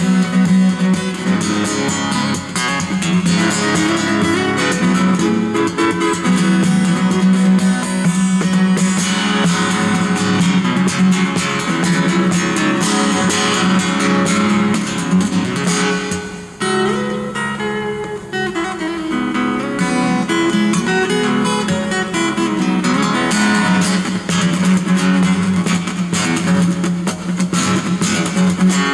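Solo steel-string acoustic guitar played fingerstyle with percussive technique: fast plucked and strummed notes over sharp hits on the guitar body. About sixteen seconds in it drops briefly to a lighter passage, then builds back up.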